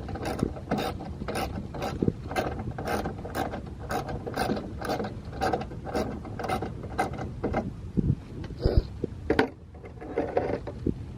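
Hand ratchet wrench clicking steadily, about two to three clicks a second, as it backs out a 10 mm headlight mounting bolt; the clicking stops after about seven seconds and a few separate knocks follow.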